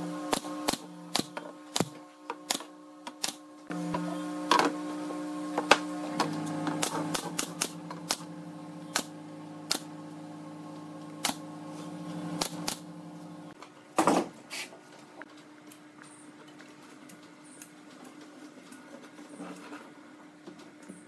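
Irregular sharp clicks and knocks over a steady machine hum. The lower part of the hum stops about two-thirds of the way in, a louder knock follows just after, and only the fainter hum and occasional clicks remain.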